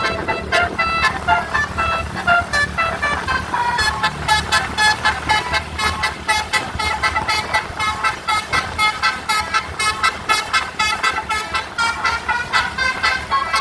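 Indonesian bus 'telolet' musical horn playing a fast melody of short, changing notes over a low steady hum.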